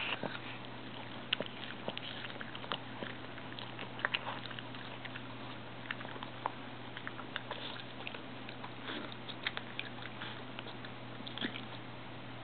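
Boston terrier chewing pieces of green apple slice, with scattered, irregular crunches and clicks of her teeth.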